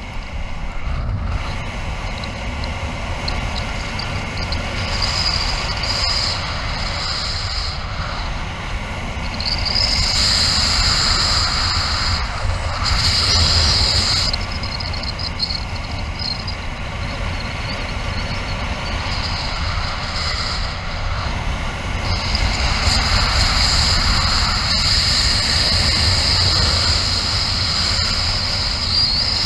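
Airflow rushing over the camera microphone as a Nervures Rafale 13 paraglider flies at full speed with its trimmers fully released. It is a steady, loud rush with a high hiss that swells twice, in the middle and near the end.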